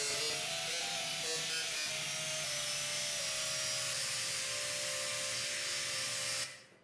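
Vacuum cleaner running with a steady whine that shifts in pitch, dropping out for a moment near the end.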